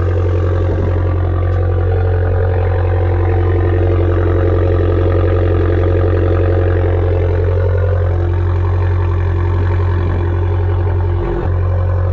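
Abarth 595 Turismo's turbocharged 1.4-litre four-cylinder engine idling steadily, its tone shifting slightly about eight seconds in.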